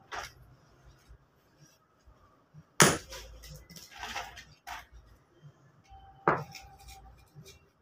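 Lumps of charcoal clinking and knocking against each other as they are handled and packed into a sack: a few sharp clinks, the loudest about three seconds in, with lighter ticks between.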